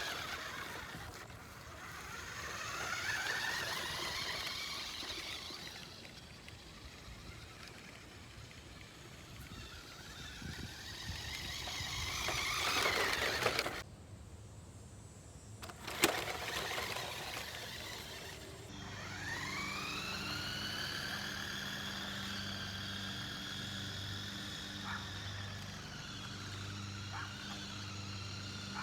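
Toy R/C Polaris RZR truck's electric drive motor whining as it is driven, rising in pitch as it speeds up and falling as it slows, several times over. Near the end the whine climbs and then holds steady at speed.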